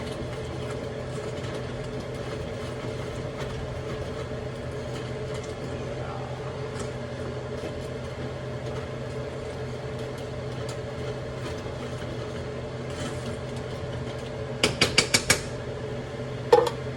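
Steady kitchen hum, then a quick run of five metal taps and a single louder clink with a short ring near the end: a utensil knocked against a pot after mixing.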